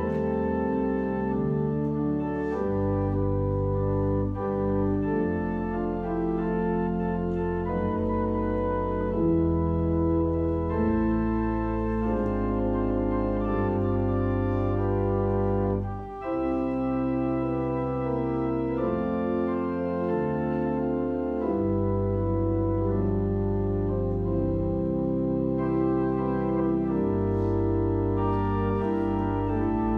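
Organ playing a slow instrumental hymn in held, sustained chords, with a brief drop in sound about sixteen seconds in.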